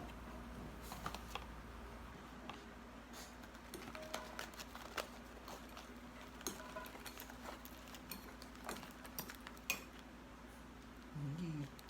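Faint scattered clicks and light taps over a low steady hum, with a short wavering sound near the end.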